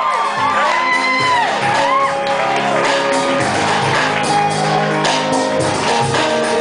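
Live electronic music: Nord keyboard chords over a triggered beat, with whoops and shouts from the audience over the first couple of seconds.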